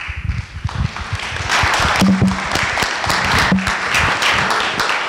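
Audience applauding, a dense patter of many hands that swells over the first second or so and stays full.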